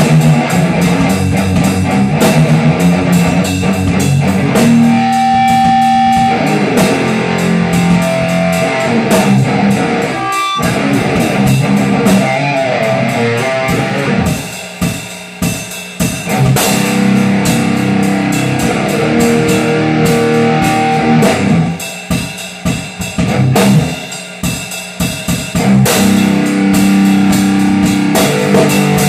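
Live rock playing on electric guitar and drum kit. The guitar holds chords over the drums, with a brief break about ten seconds in and two choppy, stop-start passages of short hits partway through and later on.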